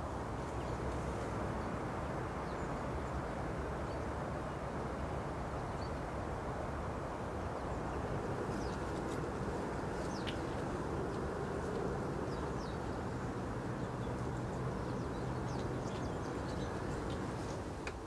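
Outdoor ambience: a steady low rumble of background noise, with a few faint high bird chirps around the middle.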